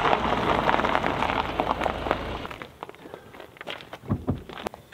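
Estate car's tyres crunching over loose gravel as it rolls in and comes to a stop, with the engine rumbling low; after about two and a half seconds this fades into lighter crunching footsteps on the gravel and a few knocks.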